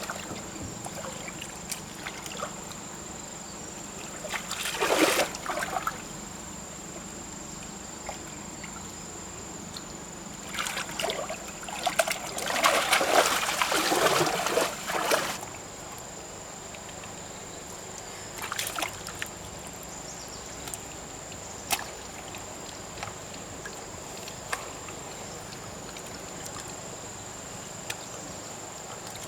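Water splashing and sloshing in short bouts, once about five seconds in and again for several seconds from about ten seconds in, over a steady high-pitched whine.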